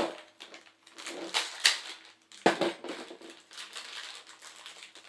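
Clear plastic bag of small toy parts crinkling as it is handled, with a few sharp knocks of hard objects set down on a tabletop, one at the start and one about two and a half seconds in.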